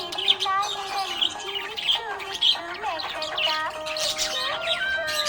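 Budgerigar chirping and squawking over background music of held, steady notes.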